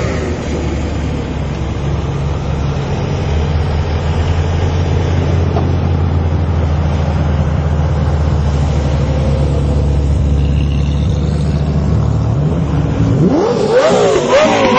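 Sports car engines running at low revs as a line of cars rolls slowly past, a steady low drone. Near the end a louder engine revs, its pitch sweeping up and down.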